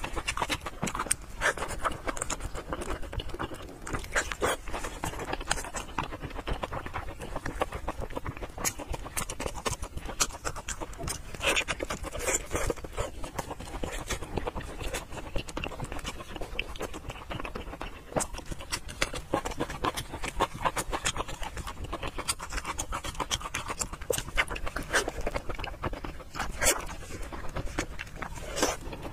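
Close-miked chewing and lip smacking on soft, fatty braised pork: wet mouth sounds with many irregular clicks and smacks.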